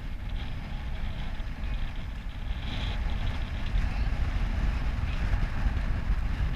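Wind buffeting the microphone on the deck of a moving sailboat, an uneven low rumble with a faint hiss above it.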